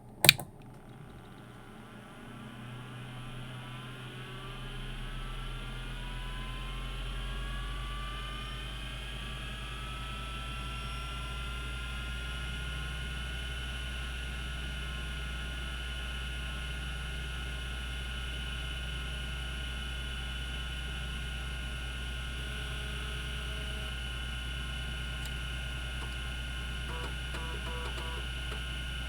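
Cogito Systems CG-912 5.25-inch hard disk drive powering up: a sharp click just after power is applied, then the spindle motor spinning the platters up toward 3600 RPM. Its whine rises in pitch over about ten seconds, then settles into a steady running whine over a low hum, with a few faint ticks near the end.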